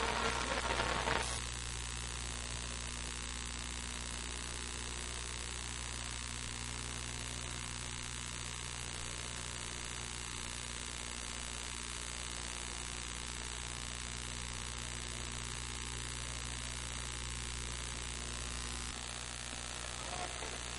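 Steady electrical hum with hiss, with no other sound. A brief burst of voices cuts off about a second in.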